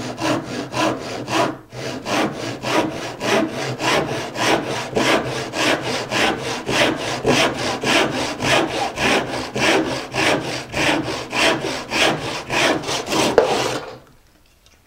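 Hand crosscut joinery saw cutting through wood in steady, even strokes, about three a second, with a brief pause early and the sawing stopping about a second before the end.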